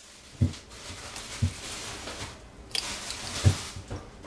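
Three soft low thumps, with a faint rustling hiss between them: small kitchen handling noises while working with the separated egg.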